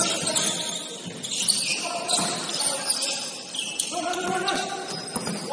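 Basketball game sounds: players' voices calling across the court and a basketball bouncing on the floor.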